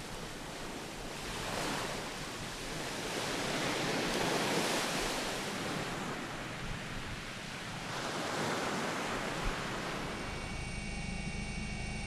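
Sea waves surging up a shore strewn with volcanic pumice stones and washing back, swelling three times. Near the end a steady engine-like hum comes in.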